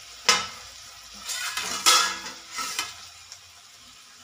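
Potatoes and onions sizzling faintly in a kadhai on the stove, with a few short metal clinks and scrapes of kitchenware in the first three seconds.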